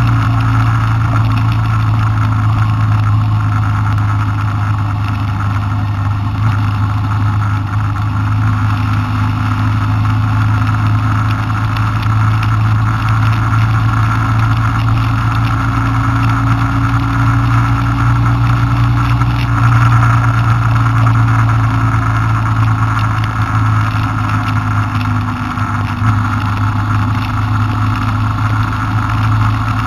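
Car engine running steadily at cruising speed with road noise, heard from inside the cabin.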